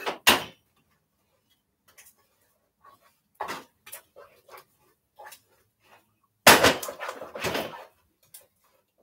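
A pot knocking against a gas stove's grate and a wooden spoon stirring thick, sticky green-plantain fufu in it: a sharp knock just after the start, scattered short scrapes, then a longer, louder stretch of scraping about two-thirds of the way through.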